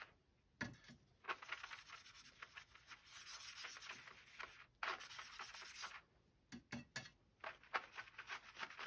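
Small watercolor brush stroking wet paint over watercolor paper, faint rubbing strokes one after another. They grow sparser over the last few seconds.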